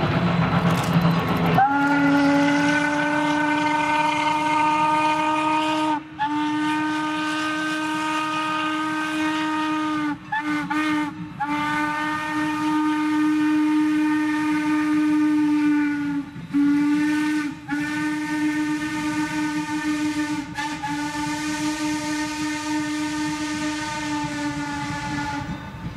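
A steam locomotive whistle blows a long series of held blasts, starting about two seconds in after a steady rumble. The blasts are broken by brief gaps, with a few quick toots about ten seconds in.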